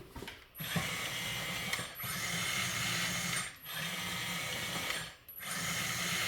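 Kabolite K963 RC crawler loader's track drive motor and gears running in four short runs of a second or so each, with brief pauses between. The motor runs quietly, without the screech it had before the track assembly was taken apart and put back together.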